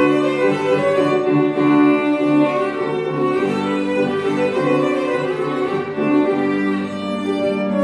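Violin and piano playing together: the violin bows sustained melody notes that change about once a second, over held piano chords.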